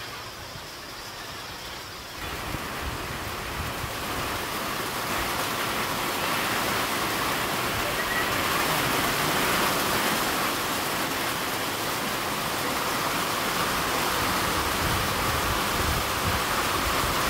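Steady rushing roar of an approaching tropical rainstorm, rain and wind sweeping through the trees. It jumps louder about two seconds in and keeps building as the downpour arrives.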